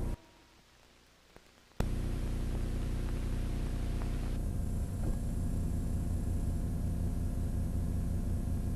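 Closing music fades out, then a moment of near silence. A click about two seconds in starts a steady hum with hiss, the noise of the old 8mm-to-VHS transfer with no soundtrack on it.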